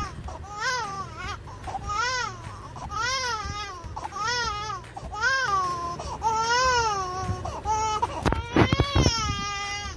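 A two-month-old baby crying in short, repeated cries that come one after another, each rising and falling in pitch. About eight seconds in, bumps and rustles from handling close to the microphone cut across the crying.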